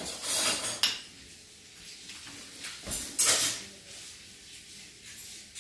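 Plastic toy-track play: a Hot Wheels loop track and die-cast toy cars being handled, with scraping and clattering, a sharp click just under a second in and a louder rushing clatter about three seconds in.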